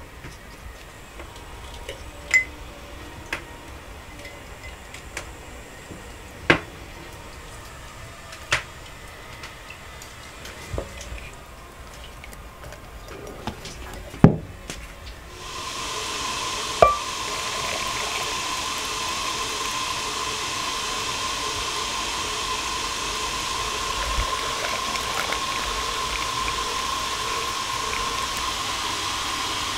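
Glass jars clinking and knocking on a table as cooked beans are packed into them, a few sharp knocks several seconds apart. About halfway in, a steady hiss with a thin constant tone sets in and holds.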